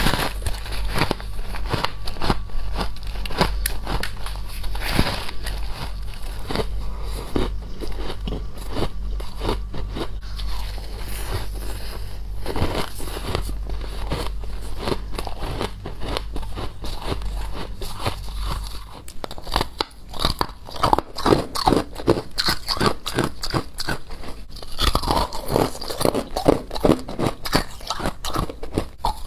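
Crunchy frost ice being bitten and chewed, crackling densely at first. About two-thirds of the way in it turns to distinct, rhythmic chewing crunches, several a second. A low hum underneath stops at that point.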